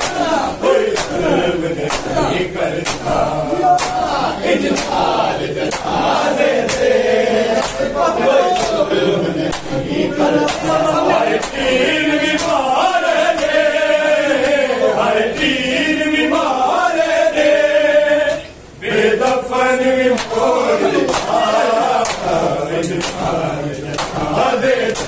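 Large group of men chanting a noha, a Shia lament, in unison, with sharp slaps of hands on bare chests (matam) beating along. The chanting drops out for a moment about three-quarters of the way through.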